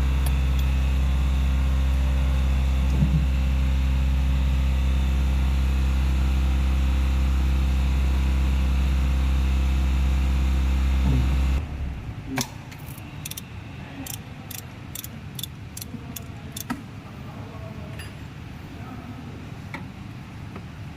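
Idling engine of a CNG light truck running steadily, then switched off abruptly just over halfway through. After it stops come a handful of sharp metallic clicks and taps over a few seconds.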